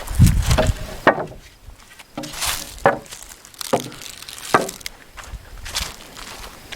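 Wooden sticker strips and boards being handled and set down on a lumber pile: a low thump near the start, then several sharp wooden clacks spaced about a second apart.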